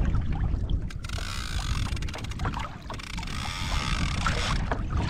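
Wind rumbling on the microphone over water sloshing against a drifting kayak, with a few small knocks and splashes.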